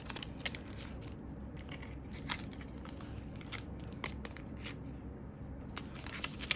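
Light rustling and scattered small clicks of paper cards, stickers and plastic sleeves being handled.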